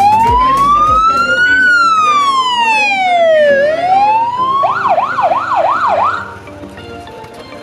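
Electronic siren on a fire brigade's rescue side-by-side vehicle: a slow wail that rises, falls and rises again, then switches to a fast yelp of about three sweeps a second, and cuts off about six seconds in.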